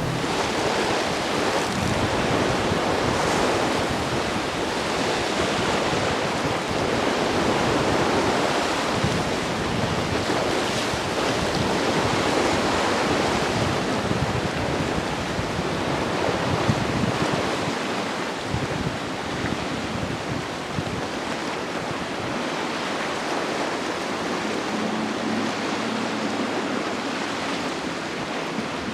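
Surf and choppy inlet waves washing, with strong wind buffeting the microphone; a faint steady engine hum comes in during the last few seconds.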